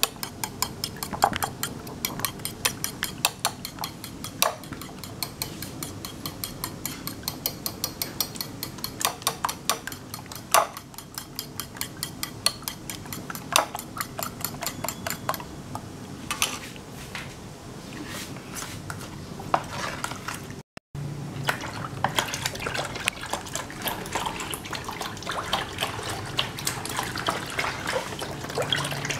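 A metal spoon beating eggs in a ceramic bowl, clinking against the bowl in a rapid, even rhythm that thins out in the second quarter. After a brief cut, milk is poured from a carton into a plastic bowl while a spatula stirs the wet mixture, a steady trickling and sloshing.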